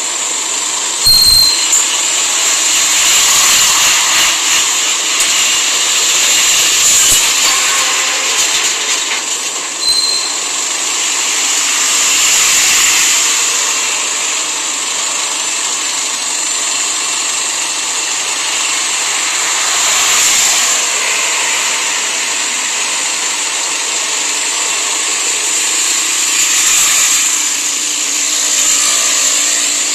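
Steady rushing road and wind noise of a vehicle driving slowly along a road, with a short knock about a second in and another about ten seconds in.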